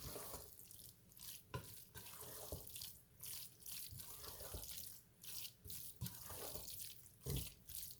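Spoon stirring a thick cheesy ground beef and rice mixture in a pan: faint wet squishing with repeated short scrapes against the pan.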